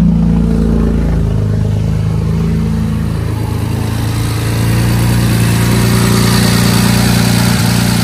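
BMW N54 twin-turbo inline-six idling just after start-up, its revs settling from the start-up flare in the first second. The new accessory belt sits too close to the alternator and rubs on its metal housing while the engine runs.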